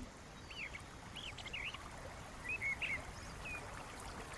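Small songbirds chirping in short, quick phrases about once a second over a faint, steady wash of running water.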